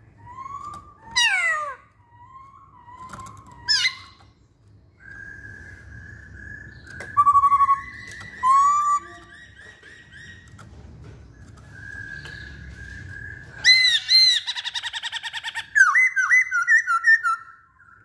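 Masked laughingthrush (poksay Hongkong) singing a varied run of loud whistled phrases. Sharp falling slurs come about one and four seconds in, held whistles and short rising notes fill the middle, and a fast run of repeated notes closes it.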